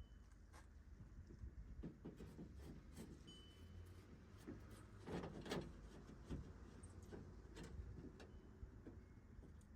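Faint, scattered clicks and knocks of parts being handled, with a denser patch of knocking and rattling about five seconds in.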